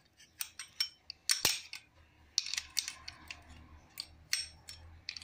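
Spanner and pliers clicking and clinking on the small bolts of a belt tensioner pulley as they are tightened crosswise: a string of sharp, irregular metallic clicks, a few coming in quick runs.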